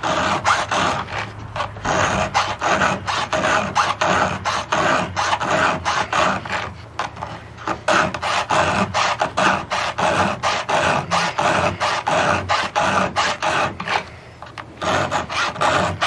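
Chainsaw chain being sharpened by hand with a round file: a steady run of rasping file strokes across the cutters, about three a second, with short breaks about seven seconds in and near the end. The chain is a low-kickback safety chain on a small saw, and it is dull.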